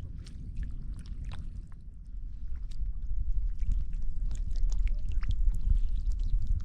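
Water sloshing and splashing in a flooded rice field, with scattered small clicks over a low rumble that grows louder about halfway through.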